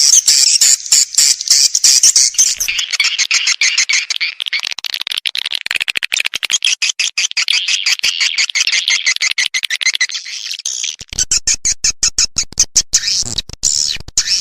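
Swiftlet lure call ("suara panggil walet") used to attract swiftlets: dense, rapid high-pitched twittering and chirping, chopped by many very short gaps.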